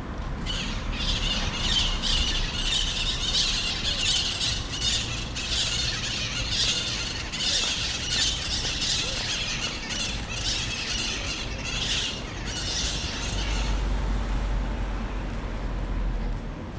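A flock of birds calling noisily, a dense chatter of many overlapping high squawks and squeals that stops a few seconds before the end, over a low outdoor rumble.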